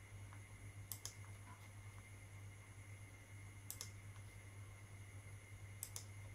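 Faint clicks of a computer mouse working the desktop: three quick double clicks, about a second in, near the middle and near the end, over a steady low electrical hum.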